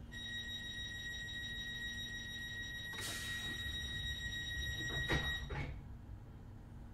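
A steady high warning tone inside a Class 321 electric multiple unit sounds for about five seconds over a low rumble. About three seconds in there is a hiss, and two knocks come near the end as the tone stops, a pattern typical of the train's doors closing.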